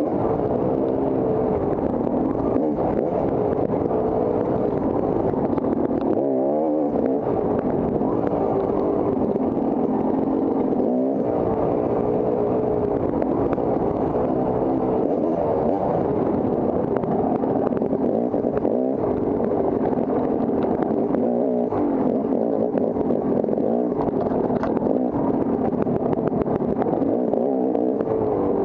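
Off-road dirt bike engine revving up and down continually as it is ridden hard, with constant throttle changes.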